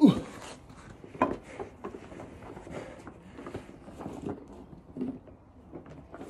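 A person breathing hard during exercise, with short grunts of effort. A loud grunt falling sharply in pitch comes right at the start, another about a second in, and lighter breaths follow irregularly.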